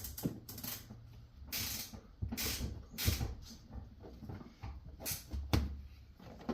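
A 9/16 ratchet working the seat mounting bolts: a series of short, irregular rasping strokes of the ratchet's pawl, with a quieter stretch in the middle.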